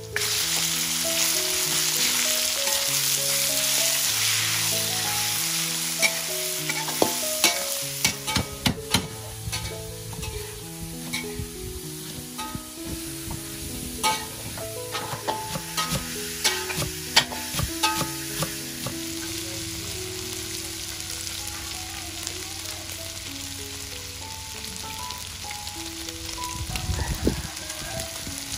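Sliced meat sizzling in hot oil and garlic in a wok, loudest in the first five seconds after it goes in, then settling to a gentler sizzle. From about six seconds in, a run of sharp clicks and knocks from the cooking utensils comes over it, and a soft melodic music bed plays underneath.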